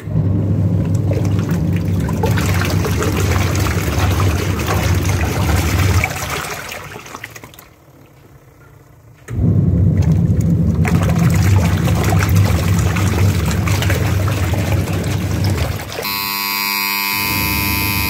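InnoQ semi-automatic washing machine's wash motor churning clothes in water: a steady hum with sloshing runs about six seconds, winds down to a short pause, then starts again, the usual stop-and-reverse of the pulsator during the wash. Near the end a steady buzzing tone sets in.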